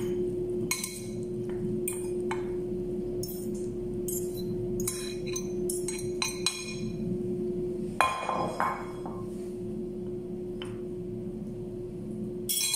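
Metal fork scraping and clinking against a ceramic bowl as salad is pushed out of it: a run of light, irregular clinks, with a louder clink about eight seconds in. A low steady hum sits underneath.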